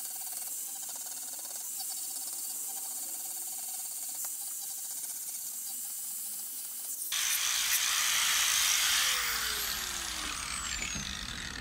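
Angle grinder running and grinding the plastic screw bosses off the back of a pond tank connector. About seven seconds in it turns suddenly louder and rougher, then it is switched off and winds down with a falling whine.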